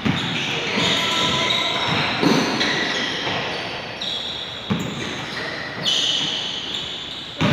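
A basketball bouncing a few times on a hardwood gym floor, each thud echoing through the large hall.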